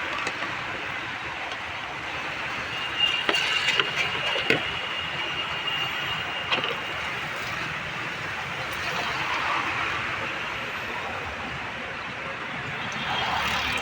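Steady street-traffic background noise, with a few sharp clicks and a brief thin high tone a few seconds in.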